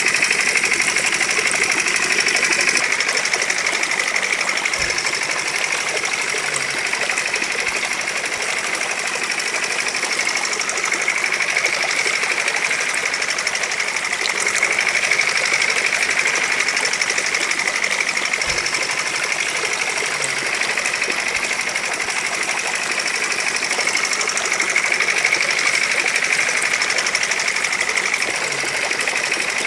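Small motor of a miniature engine-driven water pump model running steadily.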